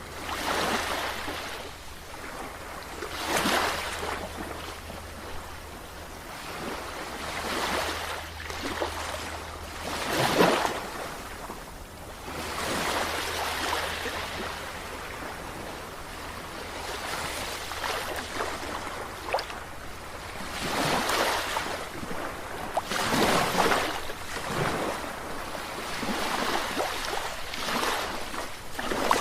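Sea waves washing in one after another, the surf noise swelling and falling back every few seconds.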